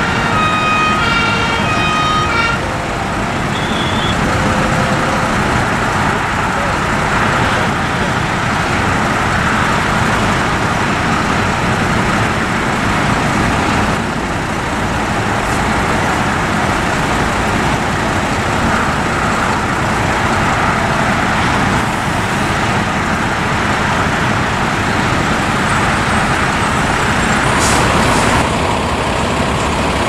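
A two-tone siren alternating for about two seconds, then stops. Fire trucks' diesel engines and tyres run steadily as the convoy drives by, louder near the end as one passes close.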